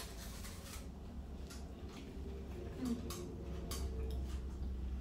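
Quiet crunching and clicking of people biting and chewing a crispy chocolate-coated wafer bar with many thin wafer layers, scattered irregular snaps over a low steady room hum.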